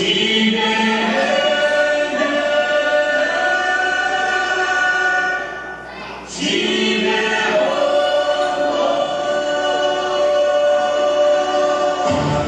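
A group of voices singing a song in chorus, in two long phrases with a short break about halfway. Near the end a drum beat comes in underneath.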